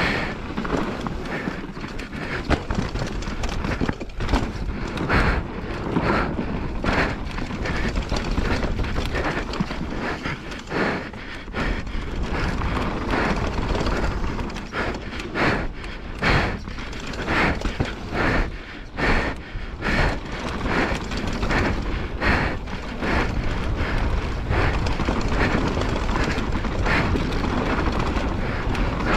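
Downhill mountain bike ridden fast over a dry, rough dirt trail: wind rushing over the mounted camera's microphone, with tyres on loose dirt and the bike rattling and knocking irregularly over bumps.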